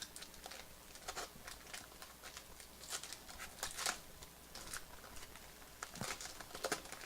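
Faint, scattered rustling and crinkling of baseball trading cards and their packaging being handled, with the loudest cluster about four seconds in.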